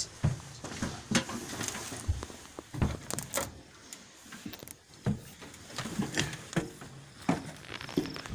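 Irregular knocks, clicks and a few low thumps of someone climbing out of a fire truck's cab past the cab door and down its diamond-plate steps.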